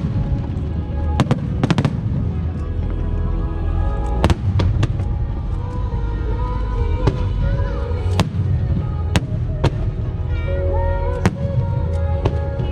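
Aerial fireworks bursting in a show: about ten sharp bangs at uneven intervals over a steady low rumble, with music playing and voices in the crowd.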